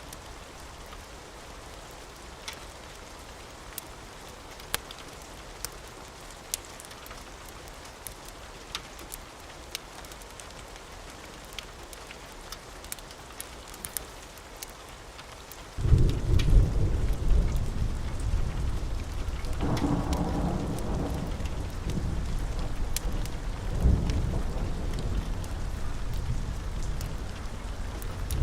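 Steady rain with scattered sharp clicks, then a sudden loud clap of thunder a little past halfway that goes on rumbling and rolling, swelling again a few seconds later.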